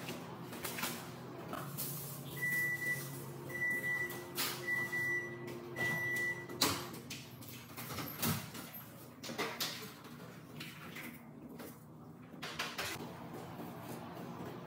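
Scattered knocks and handling sounds, with four short high electronic beeps at one pitch, about a second apart, between roughly two and seven seconds in. Near eight seconds a sharp click and knock comes as a back door is unlatched and opened.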